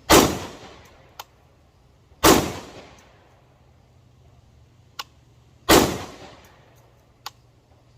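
Three rifle shots from an AR-15 with a muzzle compensator, about two and three and a half seconds apart, each with a ringing tail. A few faint sharp clicks fall between them.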